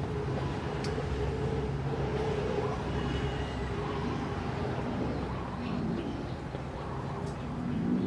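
An engine running steadily in the background with a low droning hum, its pitch rising briefly near the end.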